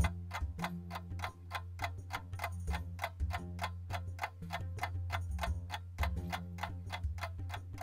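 Steady rapid ticking of a timer, about four to five ticks a second, with a low hum of background music underneath.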